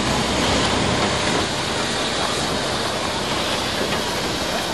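Class 50 steam locomotive 50 3552 rolling past at close range: a steady rushing, rumbling noise with no distinct exhaust beats.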